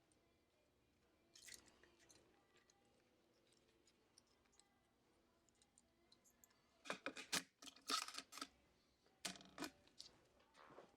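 Quiet handling noises of small phone parts and tools on a workbench: a few sharp clicks, then clusters of crackling clicks and rattles about seven and nine seconds in.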